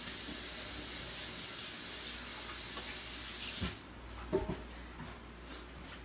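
Kitchen sink tap running steadily while hands are washed, shut off about three and a half seconds in, followed by a few light knocks.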